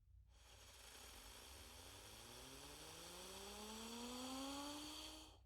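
Cartoon UFO zip-whistle sound effect: a tone gliding slowly upward over a steady hissing whoosh, growing louder and then cutting off suddenly near the end.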